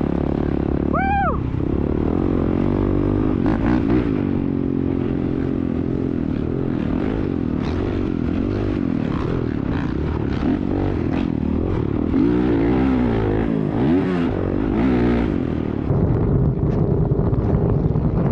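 Honda CRF450R dirt bike's four-stroke single-cylinder engine revving up and down as it is ridden over sand, heard from the rider with wind on the microphone. A brief high rising-and-falling tone comes about a second in. Near the end it gives way to a sandrail's steadier engine.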